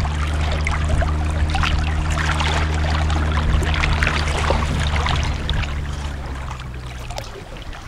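Sea water lapping and splashing against a kayak hull, with wind on the microphone, over a steady low drone; the sound fades down over the last few seconds.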